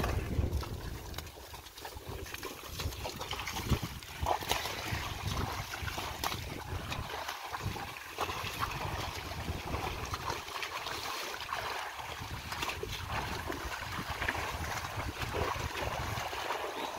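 Two water buffalo and a wooden cart with spoked wooden wheels sloshing through mud and shallow water, with scattered splashes and knocks.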